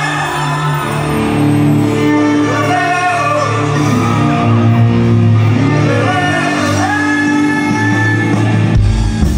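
Live band music: a sung melody over held chords and bass, with shouts. A heavy low beat comes in near the end.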